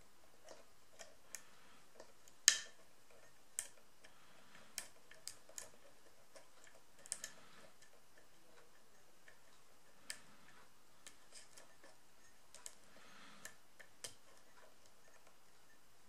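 Lock pick and tension wrench working the pins of an Ace padlock during single-pin picking: small metallic clicks and taps at irregular intervals, the sharpest about two and a half seconds in.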